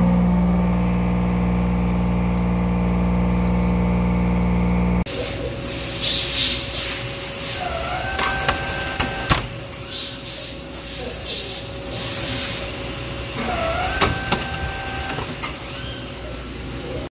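CNC machining centre cutting a steel plate. For about five seconds a 2.5-inch cutter profiles the edge with a loud, steady pitched hum. Then it changes abruptly to the hiss of flood coolant spray while a 1.8-inch tool plunges holes, with a few sharp knocks and short dipping whines.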